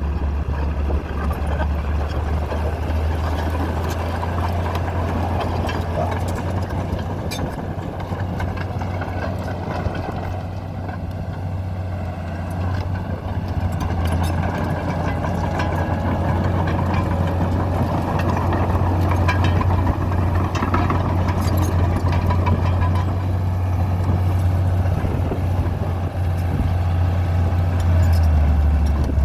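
1987 Komatsu D41P bulldozer's diesel engine running steadily with a deep, even drone; the engine note shifts slightly near the end.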